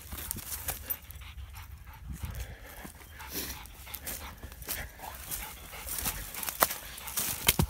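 A German shorthaired pointer making dog sounds, with sharp crackles of footsteps through dry leaf litter and twigs.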